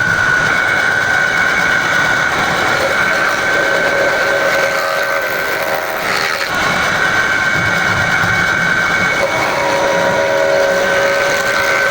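A powered woodworking machine running continuously with a steady high-pitched whine over a dense mechanical noise; the whine weakens for a few seconds midway, then returns.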